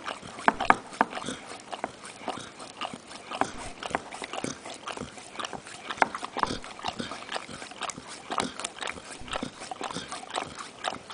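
Bernese mountain dog licking frozen yogurt out of a plastic cup: a fast, irregular run of wet tongue smacks and clicks, several a second.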